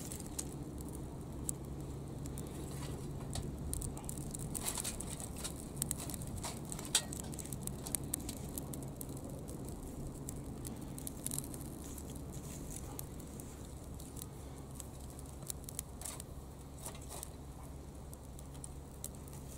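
Dry twigs being picked up and dropped into a small stainless-steel box-type wood stove, making scattered light clicks and rustles, busiest in the first half. A steady low hum runs underneath.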